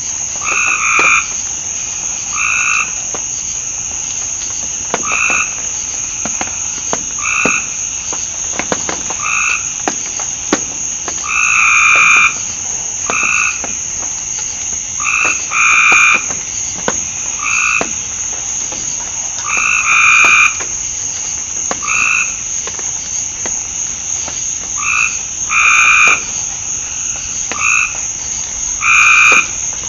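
Frogs calling in a chorus: short, repeated croaking calls every second or few, some of them louder and longer, over the steady high-pitched drone of night insects. Faint scattered clicks run underneath.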